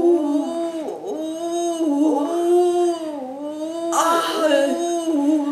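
A woman's voice singing a wordless 'ooh' melody in long held notes that slide up and down, growing louder and breathier about four seconds in.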